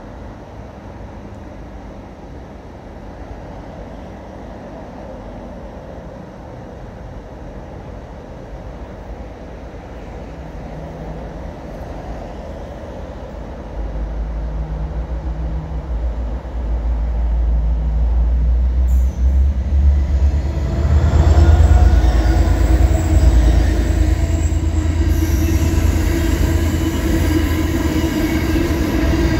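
An empty coal train approaching and passing. A low rumble builds through the first half, jumps sharply about halfway in, and is loudest as the train goes by. Over the last third a steady whine sits on top of the rumble as the empty coal hopper wagons roll past.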